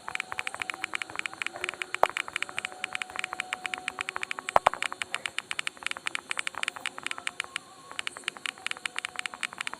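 Android phone's on-screen keyboard keypress sounds: a rapid run of short clicks as someone types, several a second, thinning to scattered taps near the end.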